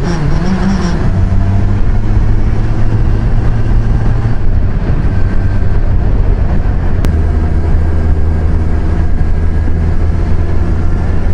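Kawasaki Versys 1000's inline-four engine running at a steady cruise, heard through a helmet microphone with wind and road rush over it. There is a single sharp click about seven seconds in.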